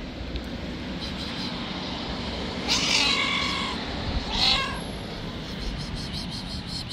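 A stray cat meowing twice, a long call about three seconds in and a shorter one about a second and a half later.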